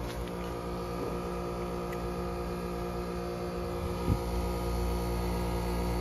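2004 Carrier Comfort Series heat pump outdoor unit running in defrost mode, a steady hum of many tones. A single light tap comes about four seconds in.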